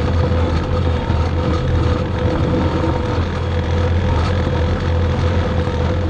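90 hp skid steer's diesel engine running steadily while hauling a full scraper pan of dirt, with a steady whine above the engine note.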